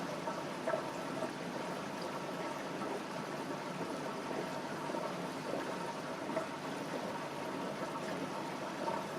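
Steady trickling and bubbling of aquarium water running through the tank's filtration or aeration, with small pops here and there.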